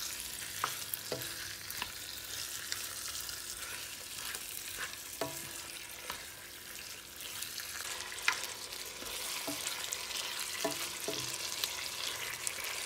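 Raw chicken pieces sizzling in oil and fried spice paste in a nonstick pan while a plastic spatula stirs them, with irregular light knocks of the spatula against the pan.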